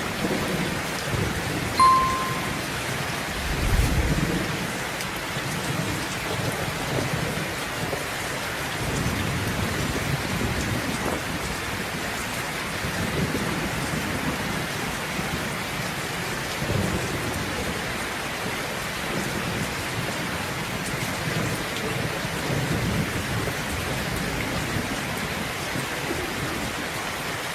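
Steady rain falling, with rolling thunder rumbling low throughout and a stronger rumble about four seconds in. A brief high tone sounds just before two seconds in.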